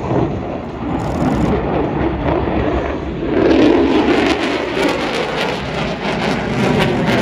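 Military fighter jet's engines roaring as it passes overhead, a broad rushing roar that grows louder and harsher about three seconds in.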